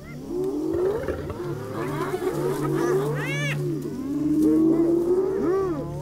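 Spotted hyenas calling around a kill: many overlapping whoops and whines that glide up and down in pitch, one call rising high about three seconds in.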